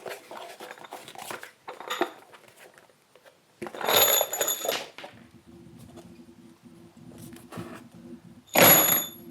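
LedgerLOK structural wood screws clicking and rattling, then tipped in two loud clattering pours into a plastic Packout organizer bin, about four seconds in and near the end. A faint low steady hum sits between the two pours.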